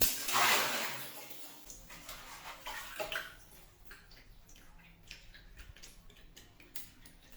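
A water balloon bursting and its water gushing out in a splash that dies away over about two seconds, with a smaller splash about three seconds in and scattered drips after.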